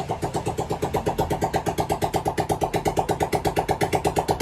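Honda CG125's single-cylinder four-stroke engine idling with an even, fast beat, freshly rebuilt with a new piston and running smoothly.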